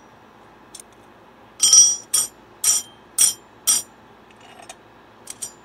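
Thin metal disc-muffler rings clinking against one another as they are handled and stacked: about five bright, ringing clinks roughly half a second apart, the first the loudest, then a couple of faint ticks near the end.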